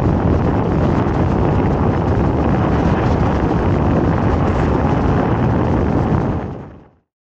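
Wind buffeting the microphone on the open deck of a boat running at speed, a steady low rumble with the boat's engine and wake noise beneath it. It fades out to silence near the end.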